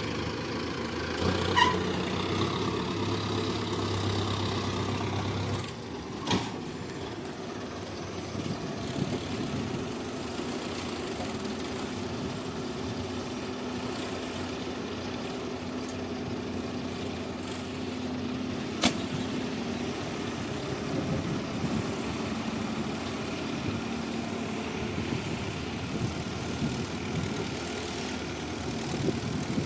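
Diesel engines of heavy earthmoving machinery running steadily, with the engine note heavier for the first five seconds or so before it eases off. A few sharp metallic clanks come through, the loudest about nineteen seconds in.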